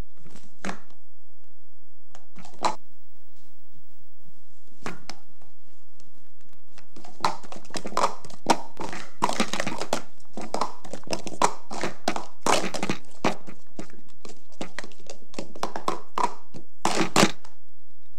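Plastic speed-stacking cups clacking on a tabletop as a cycle stack is worked up and down: a few single clacks at first, then a fast, dense run of clatter through the middle, and a last flurry near the end.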